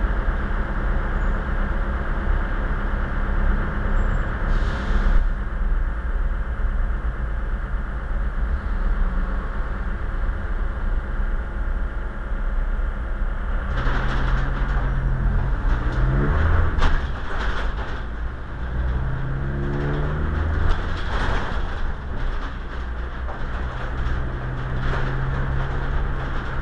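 Vehicle engine and road rumble heard from inside the load space while driving, with the engine pitch rising and falling a couple of times past the middle as it accelerates and changes gear.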